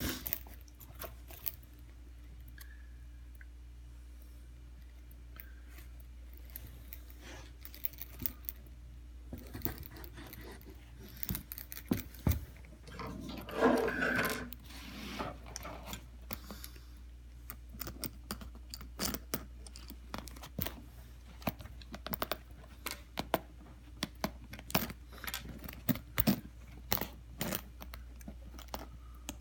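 Hand work on a leather boot with needle-nose pliers: irregular sharp metallic clicks and clinks of the tool against the boot's lace hooks and eyelets, with leather handling noise. The clicks are sparse at first and come thick and fast from about a third of the way in, with a longer, louder scraping stretch about halfway.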